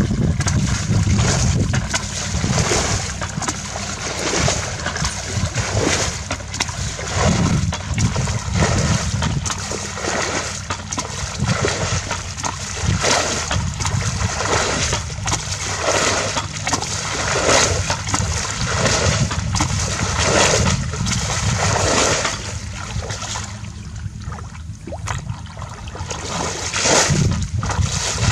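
Water splashing and sloshing in repeated strokes, roughly one a second, as hands work through shallow water to catch fish, over a steady low rumble.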